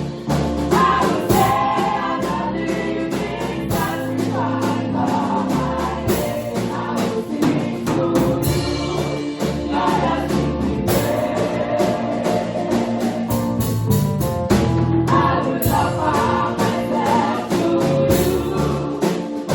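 A gospel choir singing with band accompaniment: a steady bass line under a regular drum beat.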